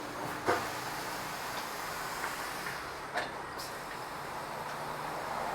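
Tyre workshop noise: a steady hiss with a few sharp clicks and knocks, the loudest about half a second in.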